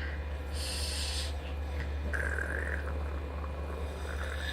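Mock snoring from a small child: a breathy hiss about half a second in, then a short whistly nasal tone around two seconds in, over a steady low hum.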